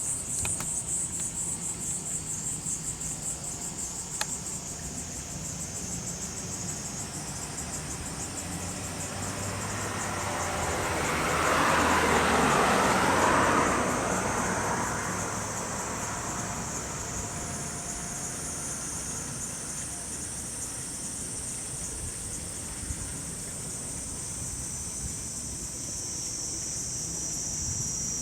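Cicadas singing in a steady, rapidly pulsing high chorus. Around the middle, a broad rushing sound, like a passing vehicle, swells up louder than the cicadas and fades away.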